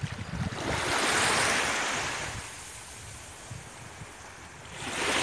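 Small sea waves washing in the shallows, a rushing wash that swells about a second in, fades, and swells again near the end, with a low wind rumble on the microphone.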